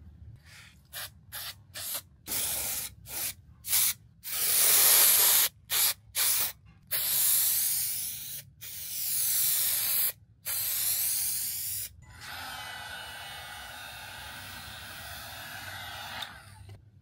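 Spray hissing from a nozzle in a quick run of short bursts, then several longer sprays of a second or so each. From about twelve seconds in it turns to a steadier, quieter hiss that stops shortly before the end.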